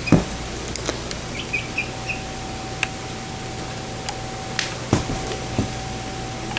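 Backyard chickens chirping a few short times over a steady hum, with a few scattered knocks.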